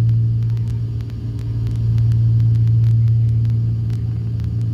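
Cessna 310's twin piston engines and propellers droning steadily in flight, heard from the cockpit, the level swelling and dipping slowly.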